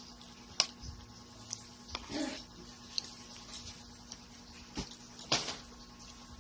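Spoon and fork clinking and scraping against a plate while scooping rice, a handful of short sharp clicks, the loudest about half a second in and another just past five seconds.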